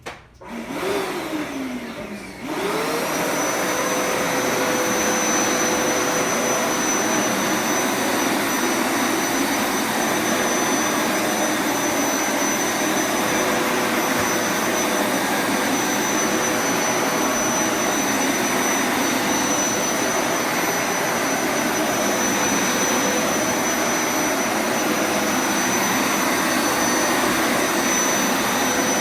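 Hoover vacuum cleaner switched on: its motor spins up about two and a half seconds in, then runs steadily with a high whine over the rush of air.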